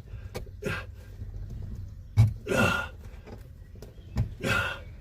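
A man's short effort grunts and breaths as he forces a pipe onto a diesel heater, twice, with a few light clicks and one sharp knock about two seconds in.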